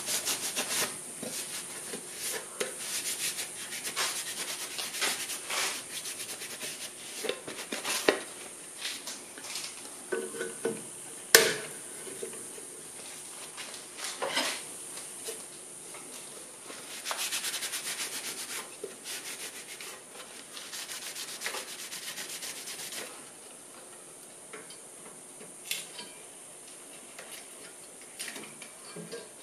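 Clear plastic eye shield being fitted to a bench grinder and wiped with a cloth: scattered clicks and taps of plastic and metal parts, one sharp click about eleven seconds in, and cloth rubbing on the plastic for several seconds past the halfway point.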